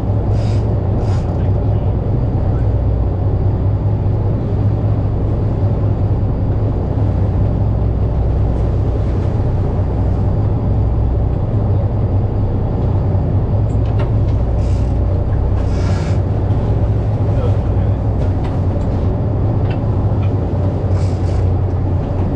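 Boat engine running steadily underway: a loud, constant low drone, with a few short bursts of hiss, near the start, around two-thirds of the way in and near the end.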